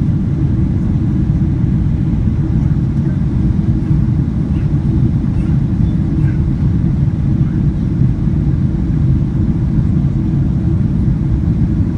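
Steady low rumble of engine and airflow noise inside the cabin of a Boeing 777-200ER.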